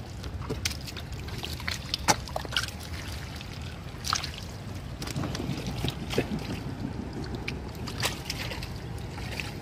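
Water trickling and sloshing, with a few short, sharp splashes or knocks scattered through.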